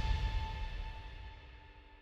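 Background music with sustained tones, fading out to near silence.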